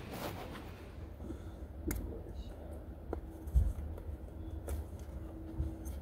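Faint clicks and light knocks of a baby carrier's buckles and straps being fastened, over a low rumble. One dull thump about three and a half seconds in is the loudest sound.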